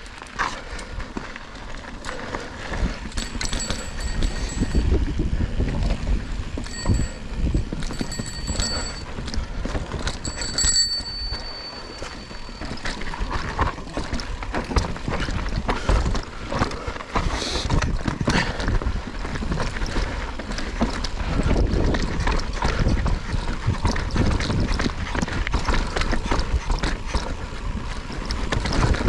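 Mountain bike descending a dirt trail: tyres on dirt and the bike rattling over bumps, with low wind rumble on the microphone. Brief high-pitched tones come and go a few times in the first dozen seconds.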